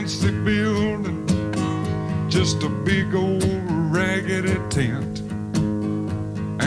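Live swamp-rock band music: strummed guitar over a steady bass line, with a wavering, sliding lead melody on top.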